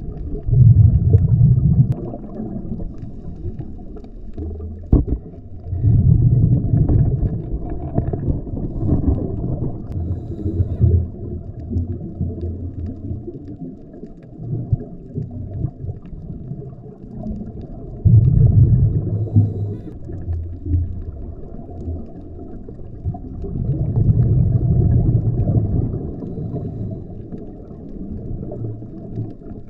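Scuba diver breathing underwater through a regulator, heard through a camera housing. Loud low rumbles of exhaled bubbles come back in bursts several seconds apart, over a steady muffled underwater wash.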